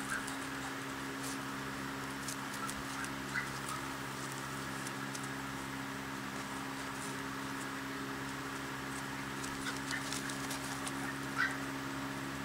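Five-week-old golden retriever puppies giving a few short, high squeaks and yips, the loudest near the end, over a steady low hum.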